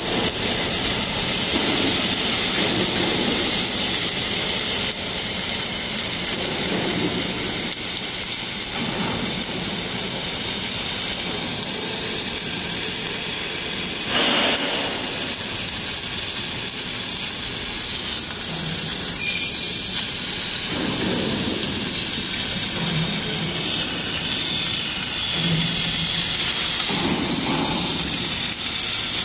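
30 kW fiber laser cutting machine bevel-cutting 25 mm carbon steel plate: a steady rushing noise of the cut with a thin high whine over it, briefly louder about halfway through.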